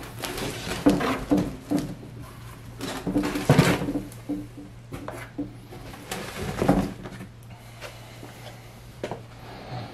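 Knocks, scrapes and rustling as a heavy cast LS3 intake manifold is handled and set down in its foam-lined cardboard box. The loudest knocks come about a second in, about three and a half seconds in, and near seven seconds.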